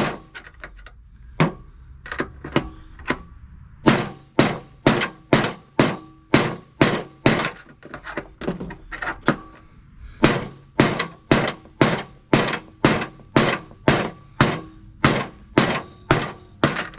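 Hammer blows on a large screwdriver used as a punch, driving a worn, stuck spindle bearing out of a John Deere L120 mower deck spindle housing. Sharp metallic strikes with a brief ring, about two a second, in runs with short pauses.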